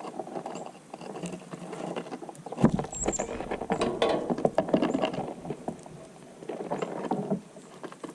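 Small birds feeding on seed: many quick pecks, scratches and flutters pattering together, with a few short high chirps. A low rumble comes in about two and a half seconds in.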